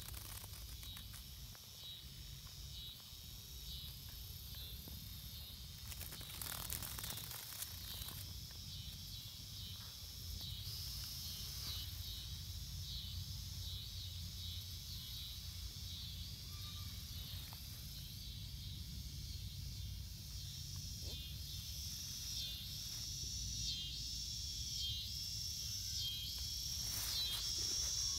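Insects chirping in a high, even rhythm of about one chirp a second, growing louder in the second half, with a few brief rustles in the grass.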